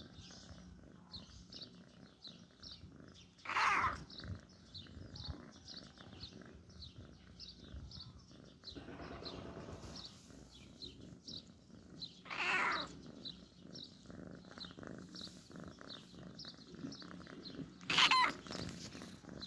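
Calico kitten giving three short meows, about four seconds in, about twelve seconds in, and near the end with its mouth wide open. Faint high chirps repeat about twice a second behind them.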